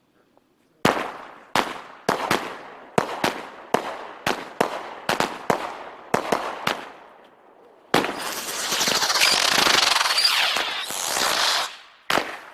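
Fireworks going off. Over a dozen sharp bangs come at irregular intervals through the first seven seconds, each trailing off. Then about four seconds of dense continuous crackling hiss, and two more bangs near the end.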